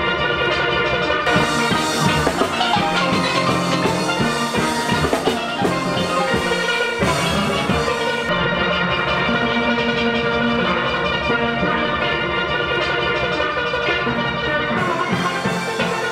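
Steel band music: an ensemble of steel pans playing a melody over drums.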